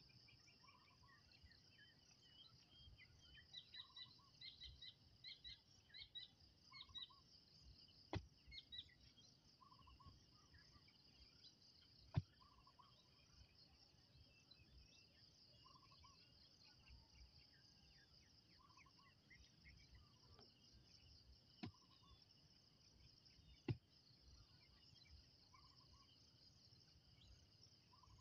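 Faint rural ambience: insects chirring steadily, a bird repeating a short call every few seconds, and busier chirping over the first several seconds. A handful of sharp, isolated knocks sound at irregular moments.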